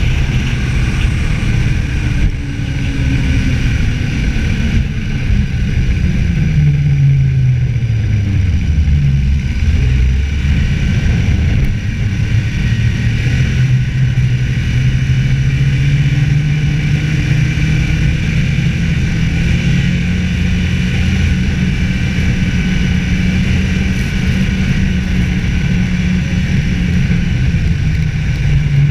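Snowmobile engine running at speed along a groomed trail, with wind and track noise. Its pitch drops about six seconds in, climbs back a few seconds later, then holds steady.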